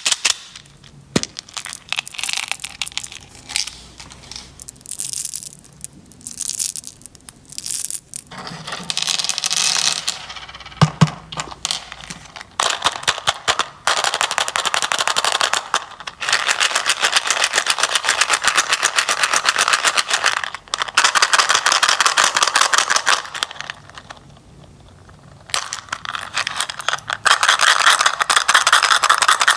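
Wrapped candies being mixed and handled: a dense, rapid crackling and clicking of hard pieces and wrappers. It stops and starts, and runs in long unbroken spells in the second half.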